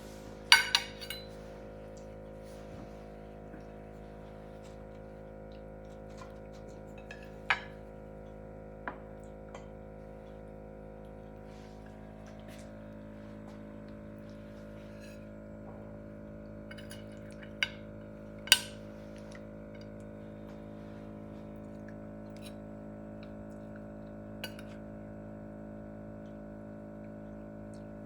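Cutlery clinking against plates now and then while people eat: a handful of sharp clinks, the loudest about eighteen seconds in, over a steady low hum.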